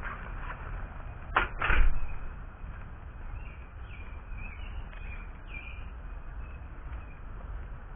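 Outdoor sound picked up by a wearable body camera's built-in microphone: a steady low rumble, with two short loud noises in quick succession about one and a half seconds in. Faint short high chirps come a few seconds later.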